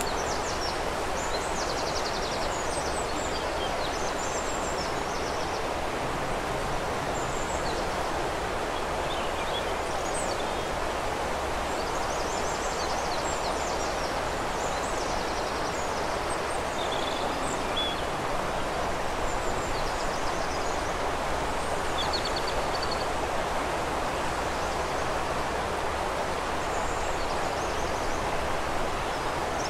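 Steady rush of flowing river water, with small birds singing high above it now and then in short chirps and quick trills.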